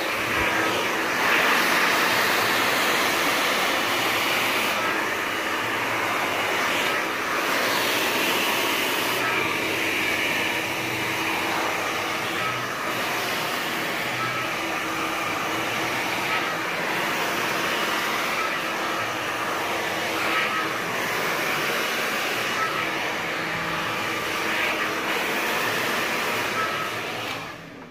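Hand-held hair dryer blowing steadily on high, a rush of air with a steady motor hum under it, while the hair is worked straight over a round brush. It stops near the end.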